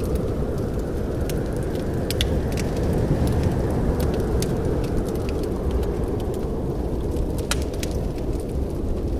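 Wood fire in a fireplace crackling: frequent sharp snaps and pops at irregular intervals over a steady low rumble of the burning.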